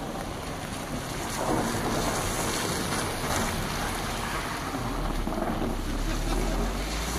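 Car engine running as the car pulls a person on a rubber ring across snow, with wind blowing on the microphone. The noise picks up about a second and a half in, and a low rumble grows stronger near the end.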